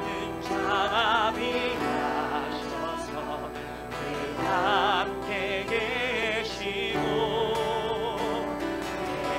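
A worship song played on acoustic guitar and sung, the voice holding notes with wide vibrato in phrases over steady strummed chords.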